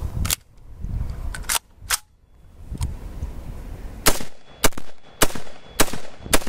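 AR-15 rifle handled with a few sharp clacks, then fired in five quick semi-automatic shots about half a second apart. The rifle cycles each round from the polymer magazine without a stoppage.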